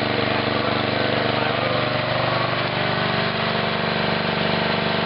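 Tecumseh 8 hp single-cylinder four-stroke engine of a Coleman Powermate generator running steadily on natural gas through a tri-fuel conversion kit.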